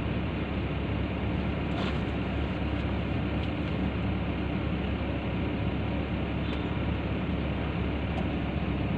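Komatsu PC160LC-8 hydraulic excavator's diesel engine idling steadily, with a few faint clicks over it.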